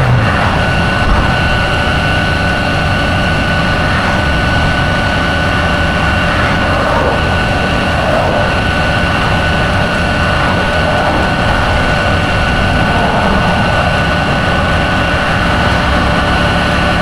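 A vehicle engine running steadily under a wash of road or rain noise, with a steady high whine.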